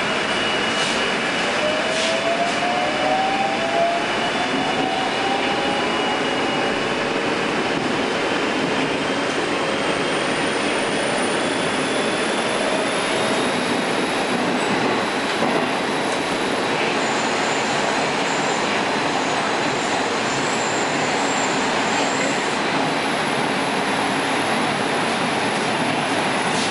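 81-760/761 'Oka' metro train heard from inside the car, running steadily on the rails as it pulls out of a station. A whine from the electric drive rises in pitch over the first dozen seconds as the train gathers speed.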